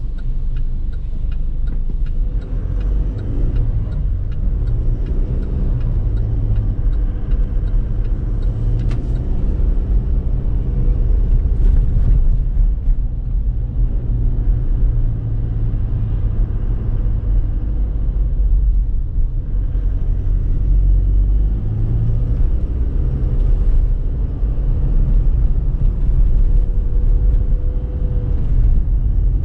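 Chevrolet Trailblazer's 2.8-litre four-cylinder turbo diesel pulling on the road. Its note climbs and drops several times over a steady low rumble.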